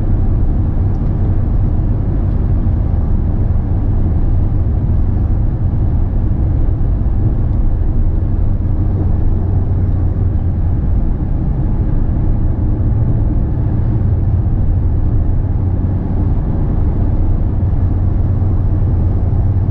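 Steady low rumble of engine and tyre noise inside a vehicle cruising on an asphalt highway.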